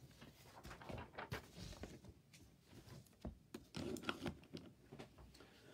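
Faint rustling and scattered small clicks and knocks of a person shifting about close to the microphone, with a slightly louder cluster of knocks about four seconds in.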